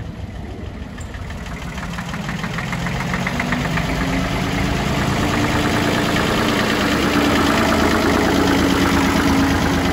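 1954 Porsche-Allgaier A133 tractor's three-cylinder air-cooled diesel engine running with a steady, even beat as the tractor drives up, growing louder over the first several seconds and then holding steady.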